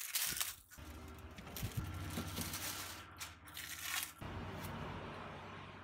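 Clear plastic wrap crinkling and tearing as it is pulled off a roll of wallpaper.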